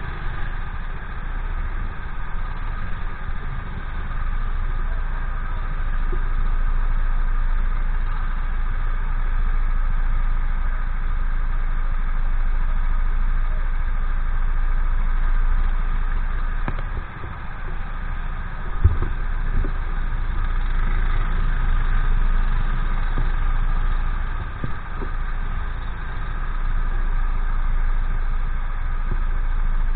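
Honda GX390 single-cylinder four-stroke kart engines idling steadily, the nearest one loudest. There is one sharp knock about two-thirds of the way through.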